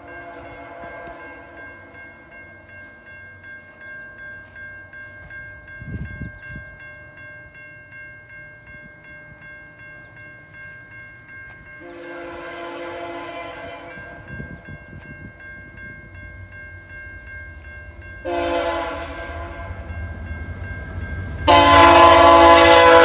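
A VIA Rail F40PH locomotive sounds its horn as it approaches a level crossing: a blast about twelve seconds in, a louder one about eighteen seconds in, and a very loud long blast near the end, with train rumble building underneath. Under it the crossing signal's bell rings steadily.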